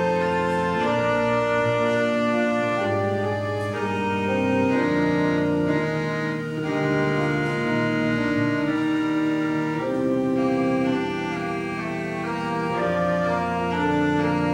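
Church organ playing: sustained chords over a held bass line, with the notes shifting from chord to chord at an even, unhurried pace.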